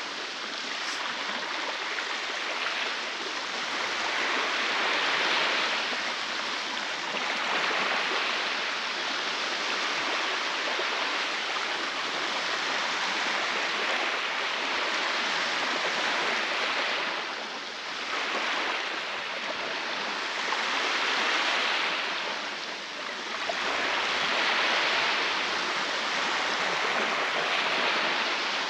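Baltic Sea waves breaking and washing up on the beach: a continuous surf hiss that swells and eases every few seconds.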